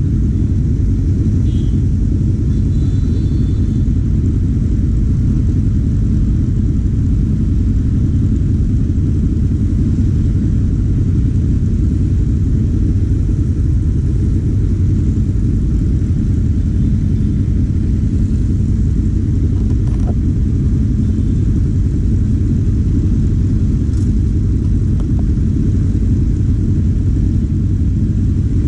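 Four-cylinder engine running steadily under way, a continuous low rumble with no clear revving up or down.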